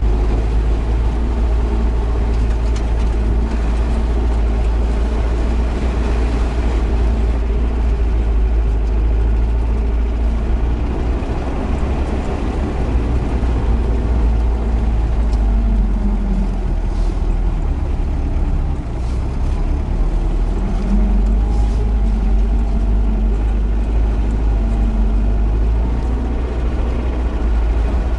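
UAZ Bukhanka van's engine pulling through mud off-road: a loud, steady low drone, with the revs shifting now and then.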